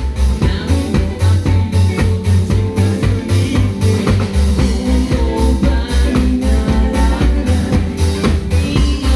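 Live band playing a song: drum kit keeping a steady beat under bass and other instruments.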